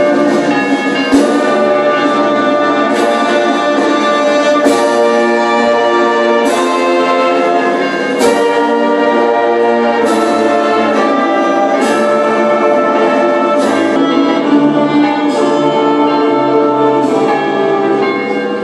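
Slow, solemn brass music with long held chords that change every second or two.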